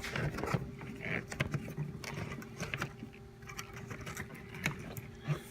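Scattered light clicks and taps of plastic parts being handled and seated: the plastic lid of the cabin air filter housing being fitted into place.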